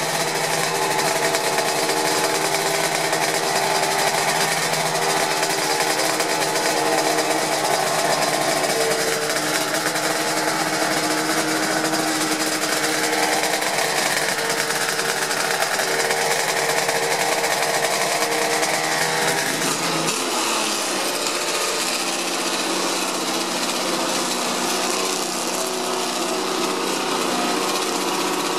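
A historic Honda racing motorcycle engine idling steadily as it warms up, its note changing about two-thirds of the way through.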